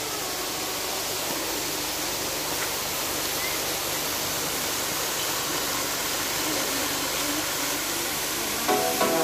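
Water pouring from the cave roof and splashing into a hot-spring pool: a steady rushing splash.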